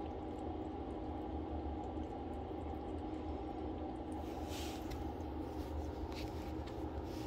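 Steady room noise with a low hum, and a few faint rustles about four to six seconds in.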